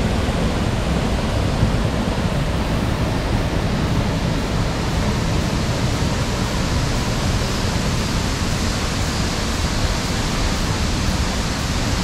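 Loud, steady rush of water, an even roar with no breaks.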